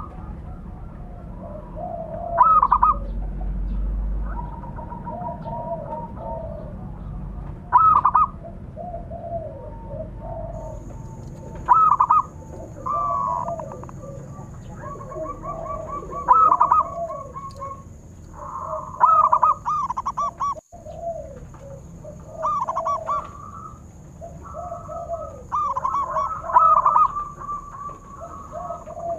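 Zebra doves (perkutut) cooing, a rapid burst of notes repeated every few seconds, with lower rolling coos between the bursts and calls overlapping as birds answer one another.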